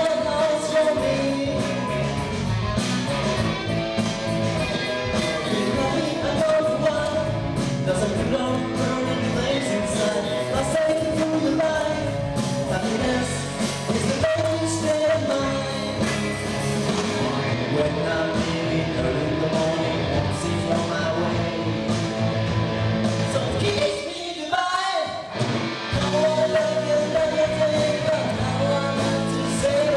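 Live rock band playing: a male singer over electric guitars, bass and a drum kit. Late on, the band drops out briefly and then comes back in.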